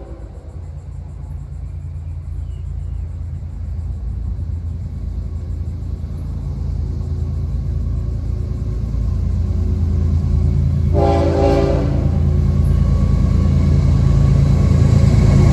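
Diesel locomotive of an approaching Florida East Coast Railway train: a low engine rumble that grows steadily louder, with one short horn blast about eleven seconds in.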